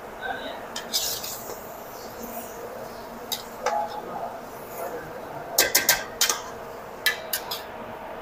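Metal ladle knocking and scraping against an aluminium pot as frying chicken pieces are stirred: scattered clinks, with a quick run of four about halfway through and three more a second later.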